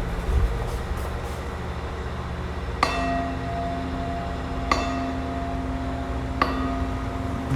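A bell struck three times, about two seconds apart, each stroke ringing on until the next, over a steady low rumble of background noise.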